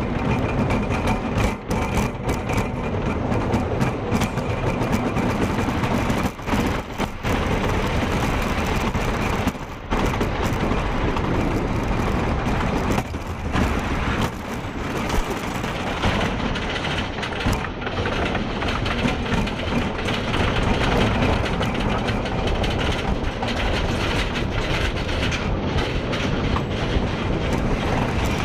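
Wooden roller coaster train running along its track: a loud, continuous ride noise with a few brief dips.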